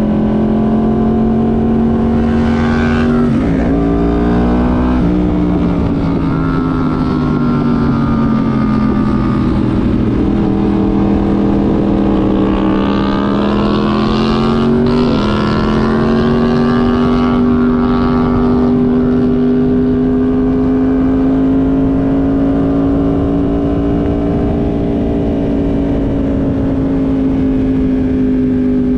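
Yamaha YZF-R1M crossplane inline-four engine heard onboard at high revs over wind rush. Its pitch jumps and drops through quick gear changes about three to five seconds in, sags and climbs again through a corner, jumps with another shift about fifteen seconds in, then holds high and steady.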